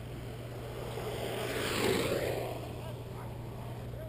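Wheels rolling past on an asphalt road: a rushing sound that swells to a peak about two seconds in and then fades away, over a steady low hum.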